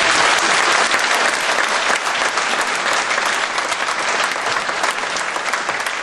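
Audience applauding, loudest at first and easing off slightly.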